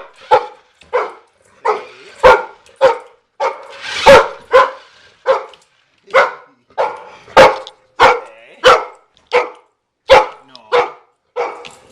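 Labrador barking over and over, about twenty short loud barks at roughly two a second.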